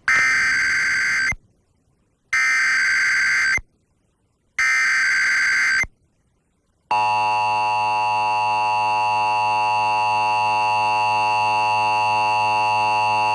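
Emergency Alert System tones relayed over FM radio. First come three raspy digital SAME header data bursts, each a little over a second long with about a second between them. About seven seconds in, the steady two-tone EAS attention signal starts and keeps sounding, marking the start of a required monthly test.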